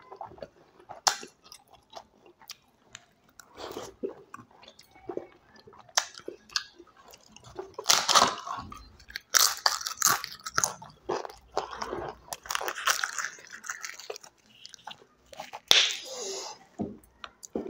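Close-miked chewing with loud, irregular crunches of crisp fried aloo papad being broken and bitten, the loudest bursts clustered in the middle and near the end.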